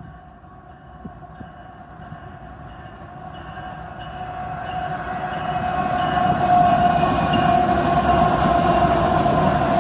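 Southbound CSX intermodal train, led by GE diesel locomotives, approaching and growing steadily louder: a rumble of engines and wheels with a steady high tone over it.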